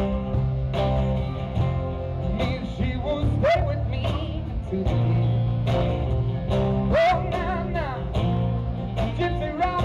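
Live band playing a song: electric and acoustic guitars and a drum kit, with a singer's voice over them.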